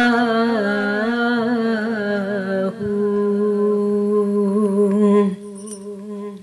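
Humming vocals in an a cappella devotional chant, drawing out a long held note that wavers gently before settling into one steady tone about halfway through. The humming fades away a little after five seconds.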